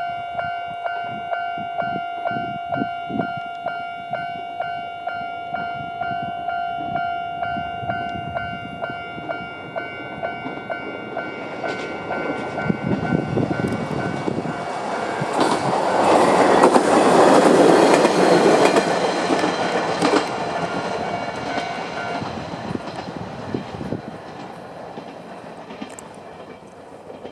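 Level-crossing alarm ringing its usual electronic tone in a steady beat of about two strokes a second. A Mooka Railway Moka14 diesel railcar passes close by, its noise swelling to the loudest part about two-thirds of the way through with wheels clacking over the rail joints. The alarm stops as the railcar draws away and the sound fades.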